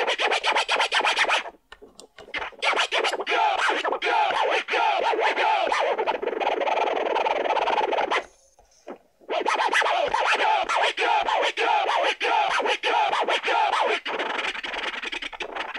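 Vinyl scratching on a Numark PT-01 Scratch portable turntable, tracked by a Shure M44-7 cartridge on a newly fitted Bihari straight tonearm: a hand works the record back and forth in quick strokes, the sample's pitch sliding up and down. This is a first scratch test of the new tonearm. Playing breaks off briefly twice, about a second and a half in and again around eight seconds in.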